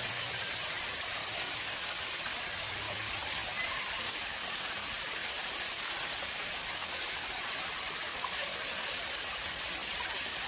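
Water running and splashing steadily into a man-made pond, an even rushing hiss that holds level throughout.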